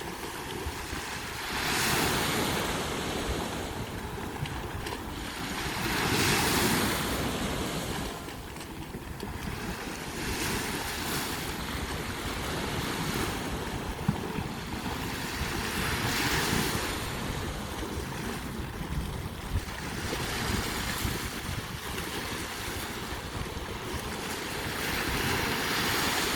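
Sea waves breaking and washing onto a beach, the surf swelling up every four to five seconds and falling back between.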